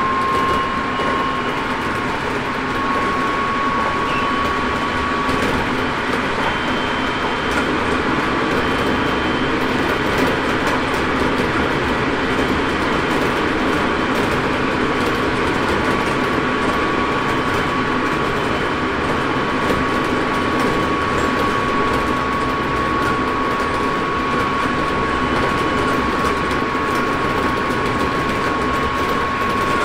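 Running noise inside a Hokuso 7300-series electric train (Toyo GTO-VVVF) at high speed: a steady rumble of wheels on rail, with a high motor whine that rises slightly in pitch as the train speeds up.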